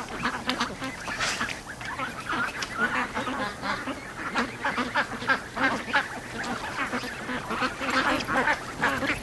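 A large flock of domestic ducks, mostly white Pekins, calling with many short, overlapping quacks that follow one another without pause at an even level.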